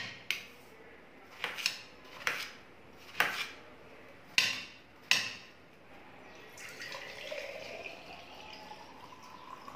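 Chef's knife cutting watermelon into a steel plate, each cut ending in a sharp click of the blade, about eight in the first five seconds. Then juice pours into a glass mason jar, the pouring sound rising in pitch as the jar fills.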